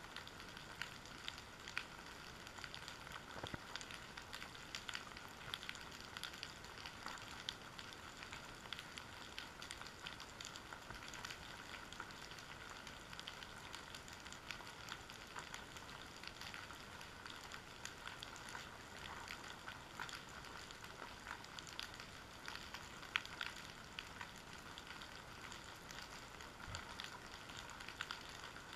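Underwater seabed ambience: a continuous fine crackling and clicking, with no engine or voice in it.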